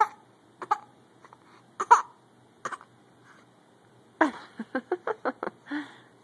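A small child making short, sharp sneezing sounds, about four spread over the first three seconds. Near the end comes a quick string of about six short voice sounds.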